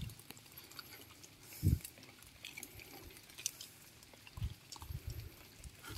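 Dog eating rice from a metal bowl, chewing with small wet mouth clicks, with a short low sound about two seconds in and a few weaker ones near the end.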